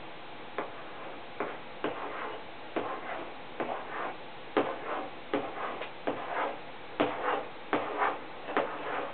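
Chalk writing on a small easel chalkboard: a string of sharp taps, each followed by a short scratch, as characters are written one after another.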